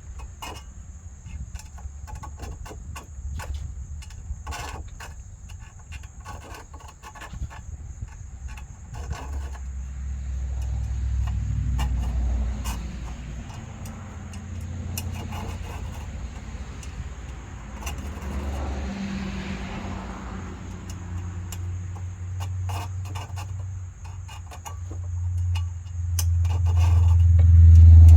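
An engine running at low speed, getting louder near the end, with scattered knocks, clicks and scrapes over it.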